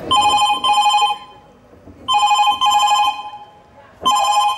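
Electronic telephone ringing: three rings about two seconds apart, each a pair of short trilling bursts.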